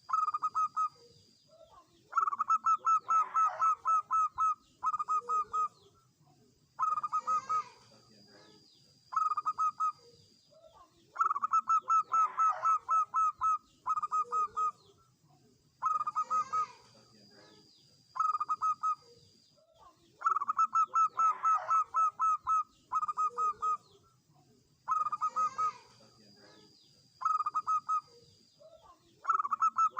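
Zebra dove (perkutut) singing: phrases of rapid, staccato coo notes, several groups at a time, repeating in the same pattern about every nine seconds. Faint high chirps run over the phrases.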